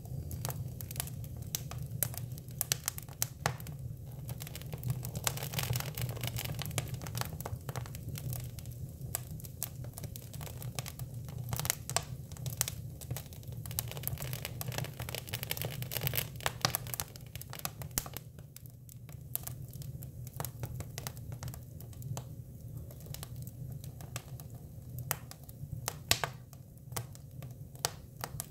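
Hinoki cypress wood burning, crackling with frequent irregular sharp pops over a steady hiss.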